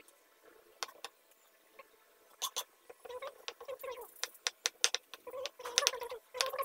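Kitchen knife chopping cucumber on a wooden cutting board: a series of sharp, irregular taps, quickening past the middle. Short repeated pitched sounds are heard alongside.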